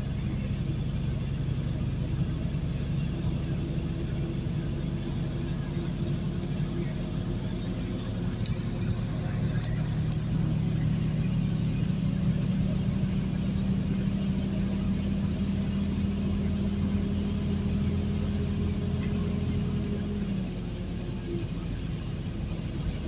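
Truck engine droning steadily inside the cab as it accelerates along a highway, with road noise; about twenty seconds in, the engine note drops in pitch.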